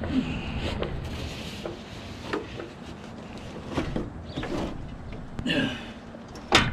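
Scattered metal knocks and scrapes as a Honda GX340 engine is shifted about on its mounting plate in a golf cart's engine bay, with one sharp clank near the end.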